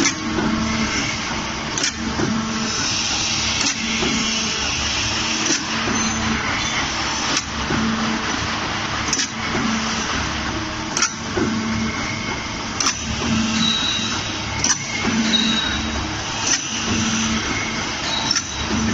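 Four-station CNC pipe punching machine running, its dies punching slots in steel pipes with a sharp clack about every two seconds over a steady machine hum. The pipes index forward between strokes.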